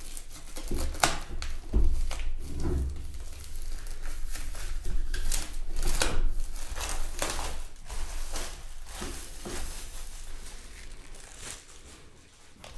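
Clear plastic wrap on a cardboard box crinkling and tearing as it is peeled off by hand, in irregular crackles that thin out near the end.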